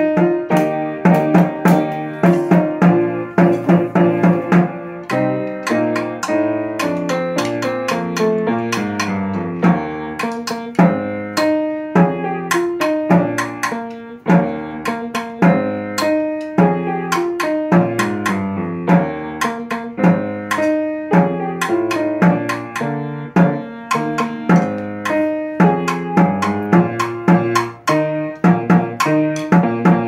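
Snare drum played along with a recorded concert band accompaniment: sharp drum strokes over the full band's melody and bass line.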